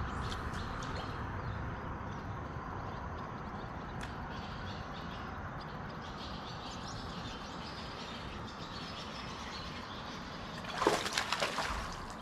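Steady hiss over the water, then near the end a hooked bass splashes and thrashes at the surface beside the boat in a short run of loud splashes.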